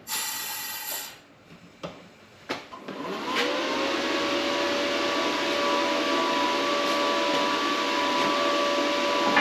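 A short burst of sound and a couple of clicks, then about three seconds in an electric machine motor winds up and runs steadily with a whine over a noisy rush.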